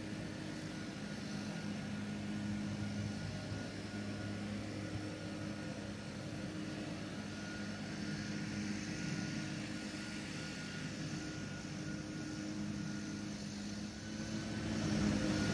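Steady low mechanical drone with a constant pitch, growing louder near the end.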